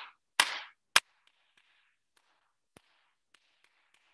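Hands clapping out the spelled letters of a song: sharp claps about half a second apart in the first second, each with a short ringing tail, then only faint scattered taps.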